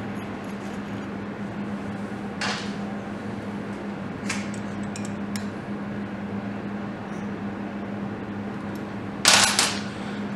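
An Allen key tightening the single M6 bolt that holds the trigger wheel on the crank end of a BMW K100 engine: a couple of faint metal scrapes and clicks, then a louder, sharp metallic clatter lasting about half a second near the end. A steady low hum runs underneath.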